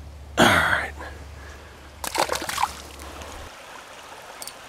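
Water splashing: one loud splash about half a second in, then a quick run of smaller splashes around two seconds in.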